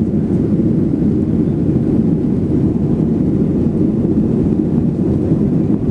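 Airliner cabin noise during takeoff: the steady low drone of the jet engines and rushing air, heard from inside the cabin.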